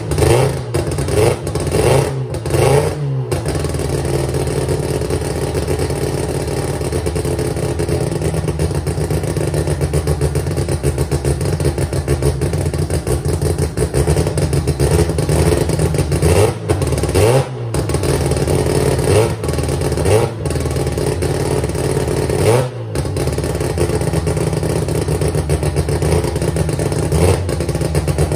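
Mazda R100 drag car's rotary engine running on stands, settling to a steady idle between sharp revs. Blipped several times in the first few seconds, it then idles evenly for a long stretch before being revved again in short bursts later on, with brief momentary drop-outs as the revs fall.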